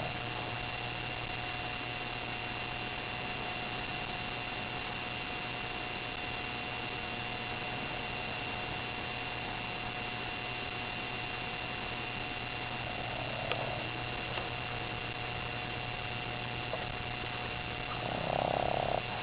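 A sleeping eight-month-old puppy snoring: a short snore about two-thirds through and a louder, second-long one near the end. Between them a steady electrical hum and hiss.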